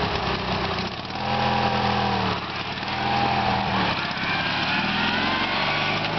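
John Deere 116 racing garden tractor's 16-horsepower twin-cylinder engine pulling away under hard throttle. The engine note climbs, falls back about two and a half seconds in and again about four seconds in, then climbs once more.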